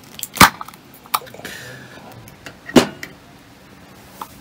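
A glass jar of apple jam and a metal spoon being handled on a table: two loud, sharp knocks, about half a second in and near three seconds in, with a few lighter clicks between them.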